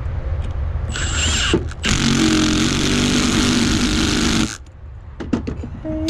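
Milwaukee M18 impact driver tightening the set screw of a Polaris insulated connector lug: a brief spin about a second in, then hammering for about two and a half seconds that cuts off suddenly. The driver is set to stop on its own once the screw is torqued.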